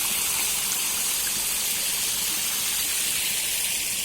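Rushing river water, swollen after heavy rain: a steady, unbroken hiss.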